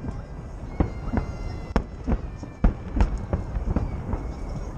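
Festive fireworks salute: shells bursting in an uneven string of bangs and pops, roughly two a second, over a steady low rumble.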